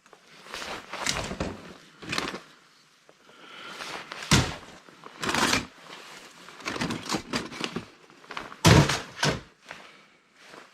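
Parts stripped from scrapped laptops being handled and tossed onto sorting piles: a series of irregular knocks and thunks, the loudest about 4 and 9 seconds in.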